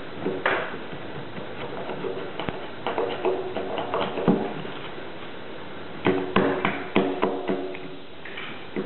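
Small hand axe chopping and paring a corner notch into the end of a timber log, sharp wooden strikes with a short ring. They come in irregular groups, with a quick run of about six strikes a little past the middle.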